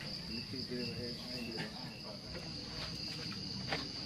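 Crickets chirring steadily in a high, even chorus, with low crowd chatter underneath and a single sharp click near the end.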